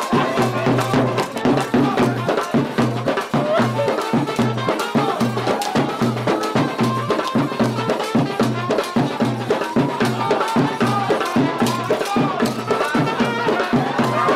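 Live drum group playing a fast, steady beat on strap-carried barrel drums, with many closely spaced strikes.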